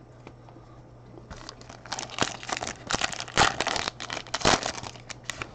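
Trading-card pack wrapper crinkling and tearing as it is opened: a run of crackly rustles starting a little over a second in, loudest in the middle, stopping shortly before the end.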